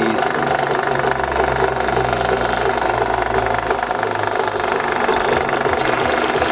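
Benchtop drill press running, its bit drilling a centre hole through a PVC pipe cap held in pliers. The motor gives a steady hum, and the low part of the sound shifts about four seconds in.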